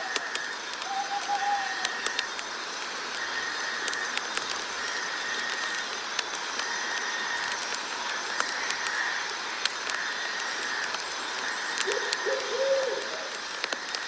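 Night nature ambience: a steady hiss under a buzzing call that repeats about once a second, with scattered faint clicks. A short wavering bird call comes about twelve seconds in.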